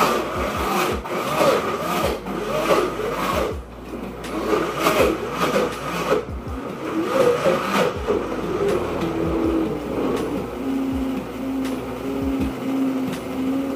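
Ninja Chef high-speed blender running on a low setting, churning frozen banana and pineapple chunks into a thick smoothie-bowl mix as a tamper pushes them into the blades. Through the first half, chunks clatter and knock against the jar and the motor pitch wavers under the load. About nine seconds in, the motor settles into a steadier hum.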